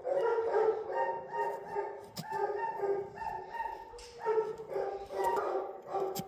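Dogs barking repeatedly, several barks a second, with short lulls in between.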